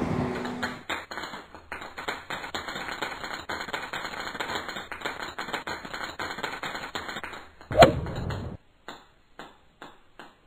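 Sound effect of many golf balls clicking and bouncing: a rapid, uneven patter of small hard taps, with one louder hit about eight seconds in, then a few sparser ticks that fade out.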